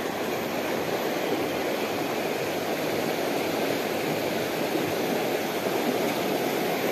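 Fast-flowing river current rushing over rocks and riffles: a steady, even rushing noise.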